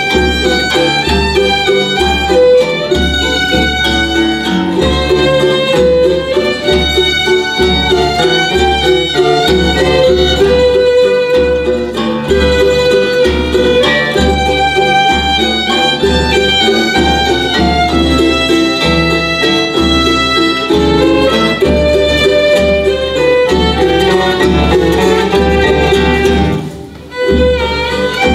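Folk ensemble music: violins play the melody over strummed guitars and a steady bass drum beat. The music breaks off briefly near the end, then starts again.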